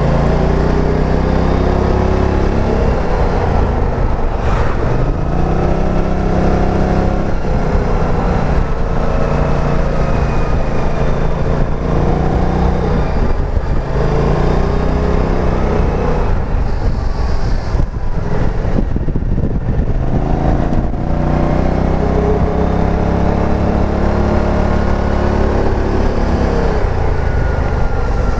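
BMW C650 GT maxi-scooter's parallel-twin engine running under way through its automatic belt drive. Its pitch rises and falls every few seconds as the throttle opens and closes through the bends, over a steady rush of wind and road noise.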